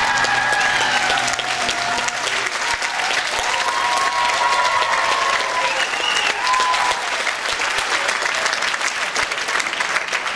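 Theatre audience applauding at the end of a sung number. The singer's last held note and the accompaniment die away in the first two seconds under the clapping.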